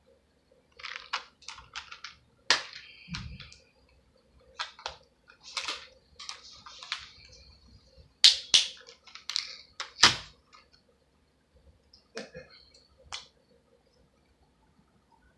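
Irregular sharp clicks and taps, a dozen or so spread over about twelve seconds, with a dull thump about three seconds in and loud knocks about eight and ten seconds in.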